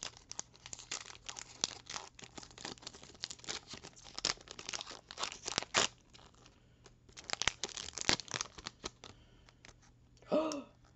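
Foil Pokémon booster pack wrapper torn and crinkled by hand: a dense run of sharp crackles and rustles, with a short lull about six seconds in. A brief voice sound comes near the end.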